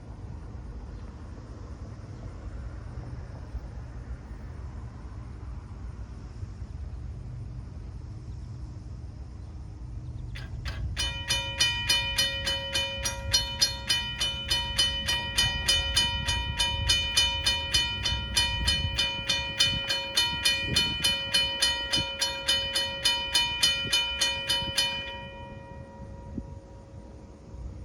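Railroad crossing's mechanical signal bell starting up about ten seconds in and ringing in rapid, even strikes, then stopping a few seconds before the end, as the crossing activates for an approaching train.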